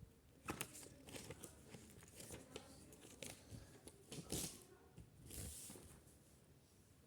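Faint rustling and crinkling of a sheet of paper being handled, with scattered soft clicks and a short rustle of paper near the end.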